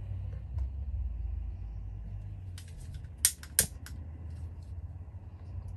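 Long-reach lighter handled and clicked, with a few light clicks and two sharp ones about three and a half seconds in, over a low steady rumble.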